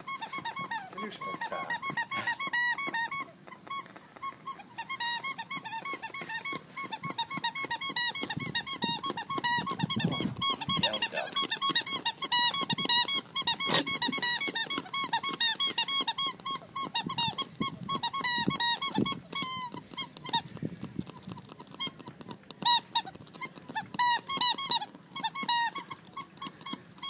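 A dog chewing a squeaky toy, setting off rapid runs of short high squeaks, several a second. There are brief breaks about four seconds in and again about twenty-one seconds in.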